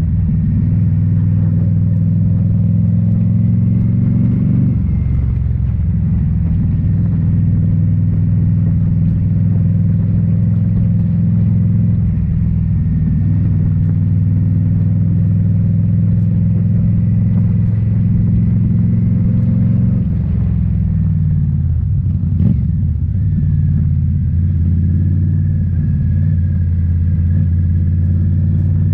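2018 Indian Scout Bobber's V-twin engine running through Rinehart slip-on mufflers while riding at a steady pace. The engine note dips briefly about five seconds in and changes pitch again about twenty seconds in, with a short click in the middle of that change.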